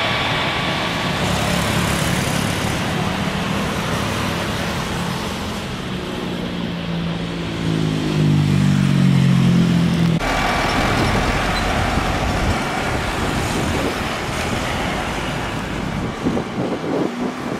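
Jet engines of a Garuda Indonesia widebody twin-jet at takeoff thrust, a steady roar with a low hum that slowly shifts in pitch. About ten seconds in, it cuts to the Rolls-Royce Trent XWB engines of a Thai Airways Airbus A350 taxiing at low thrust, a rougher, uneven rumble.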